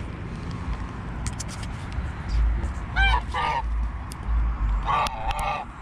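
White domestic waterfowl honking: two short calls about three seconds in, then a longer run of calls near the end, over low wind rumble on the microphone.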